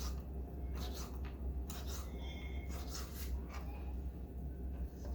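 Kitchen knife cutting cooked chicken on a cutting board: short, irregular scraping and tapping strokes, over a steady low hum.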